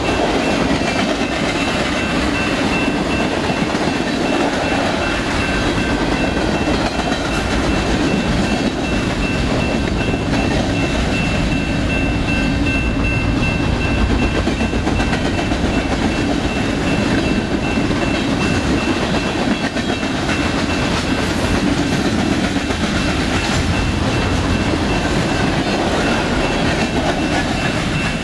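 Freight train's covered hopper cars rolling past at speed: a loud, steady rumble with wheels clattering over the rail, and a thin steady high ring running through it.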